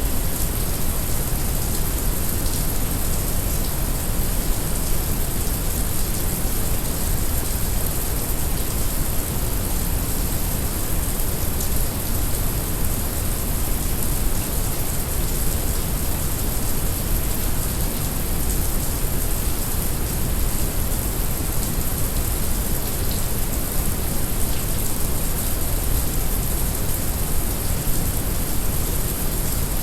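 Heavy rain mixed with brown noise: a dense, even hiss of rain over a steady deep rumble that does not change.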